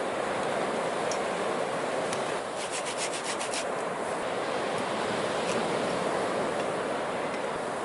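Driftwood fire crackling, with scattered sharp pops and a quick run of about eight pops about a third of the way in, over a steady rushing noise.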